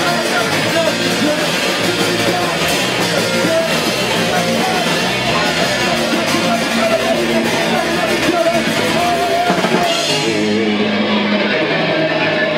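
Loud rock band playing: a distorted electric guitar and a drum kit under a vocalist singing into a microphone.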